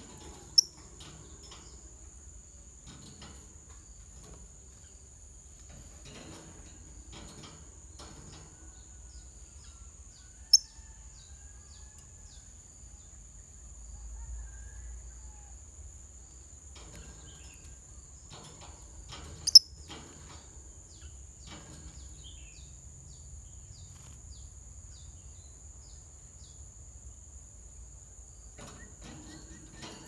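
Lovebirds in a wire cage, with three short shrill chirps about ten seconds apart. Between them come soft scattered clicks and ticks. A steady high-pitched drone runs underneath.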